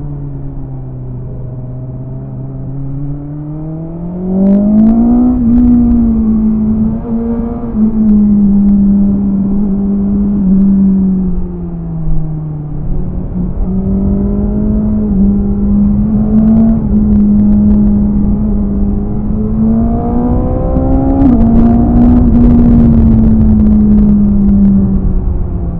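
BMW S1000RR's inline-four engine riding under load: the note sits low at first, rises as the bike accelerates about four seconds in, holds steady, drops around twelve seconds and climbs again near twenty seconds before easing off. Short sharp clicks come during the two pulls.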